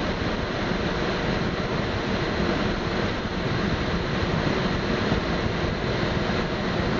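Steady rush of airflow around a Slingsby Capstan glider's cockpit on aerotow, mixed with the drone of the tug aircraft's engine ahead. The noise holds even throughout, with no changes.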